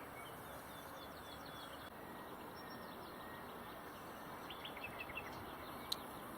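Faint outdoor hiss with a few small birds chirping: short high chirps come in quick runs, one about a second in and another a little past the middle. A single sharp click sounds near the end.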